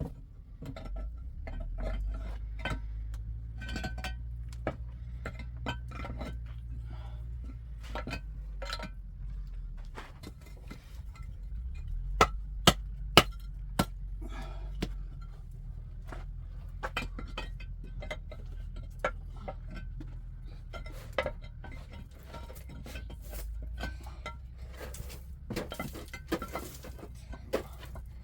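Irregular clinks and sharp knocks of hard objects being handled, with a cluster of three louder knocks about halfway through, over a steady low rumble.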